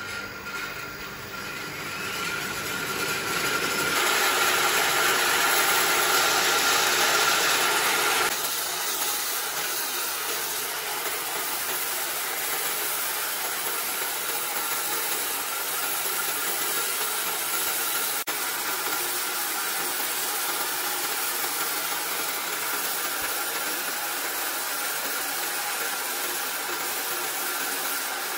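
Horizontal band sawmill, driven by a 4 HP electric motor, running steadily with the blade sawing through logs: a continuous whirring hiss. It is louder for a few seconds early on, then drops abruptly about eight seconds in to a steady level.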